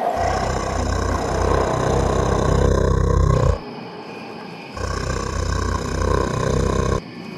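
Dinosaur roar sound effect for an Allosaurus, heard twice: a long, deep roar of about three and a half seconds, then after a short gap a second, shorter roar.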